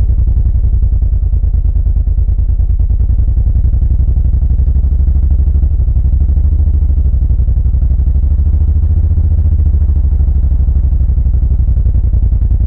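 Suzuki VL1500 Intruder LC's liquid-cooled V-twin running steadily under way, a low, even pulsing exhaust beat with no clear revving.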